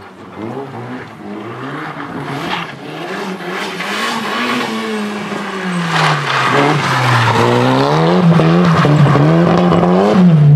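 Rally hatchback's engine revved hard, its pitch dropping and climbing again and again with the throttle and gear changes, over the noise of tyres on loose dirt. It grows louder as the car nears and is loudest near the end.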